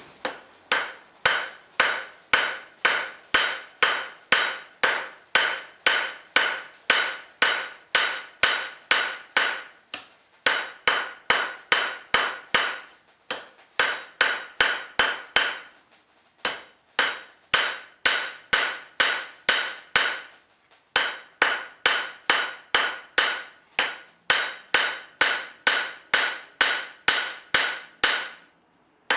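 Blacksmith's hammer striking hot steel on an anvil in a steady rhythm of about two to three blows a second, each blow ringing briefly, with a few short pauses between runs. A faint steady high whine runs underneath.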